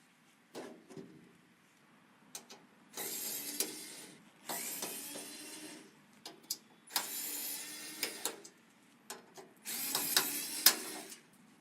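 PC parts being handled and fitted during assembly: light clicks and taps, with four noisy rubbing bursts of about a second each.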